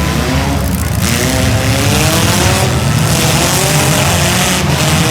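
Several compact demolition-derby cars' engines revving hard together, their pitches rising and falling, with a hissing wash of noise setting in about a second in.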